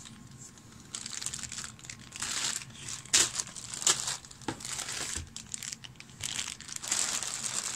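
Clear plastic bag of miniatures crinkling and rustling as it is handled. The crackles come irregularly, with a sharper one about three seconds in.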